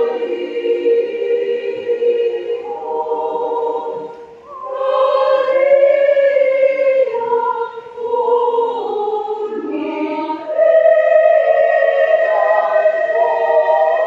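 A women's choir singing a hymn in long held notes, with a short breath pause about four seconds in and a louder new phrase starting about ten and a half seconds in.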